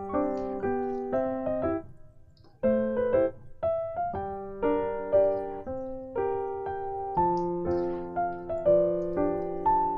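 Background piano music: a gentle melody of single notes and chords, with a brief pause about two seconds in.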